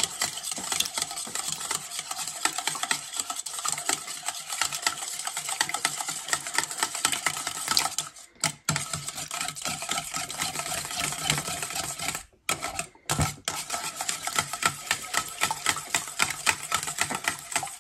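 Wire whisk beating raw eggs in a stainless steel bowl: a fast run of light metallic clicks and taps of the whisk against the bowl, pausing briefly twice.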